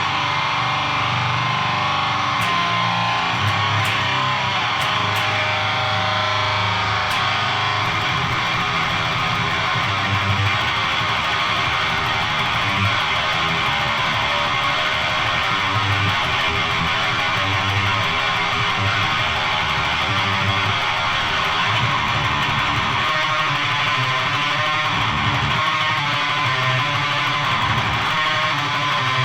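Electric guitar riffing through a Siren Pedals Eligos HM-2-style distortion pedal with every knob turned all the way up, into an all-tube amp and a 4x12 cabinet: the buzzing Swedish death metal "chainsaw" tone. The playing is continuous and loud, with rhythmic low-string chugs.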